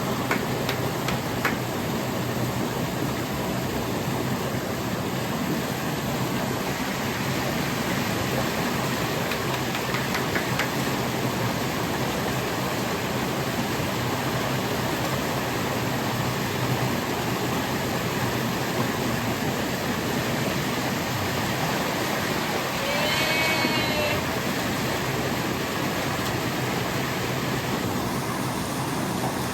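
Steady rush of falling or fast-flowing water, an even unbroken noise. A short pitched cry rises and falls about two-thirds of the way through.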